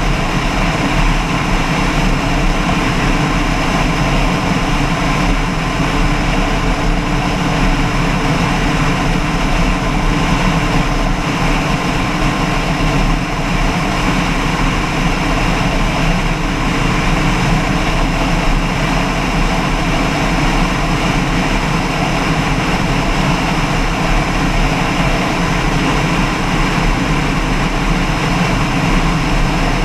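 An engine running steadily: a loud, unchanging drone with no change in speed.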